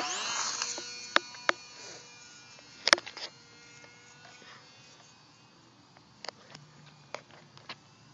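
Polecat RC plane's motor and propeller whining up loud as the plane takes off, the sound fading quickly to a thin distant buzz as it climbs away. Several sharp clicks are scattered through it, the loudest about three seconds in.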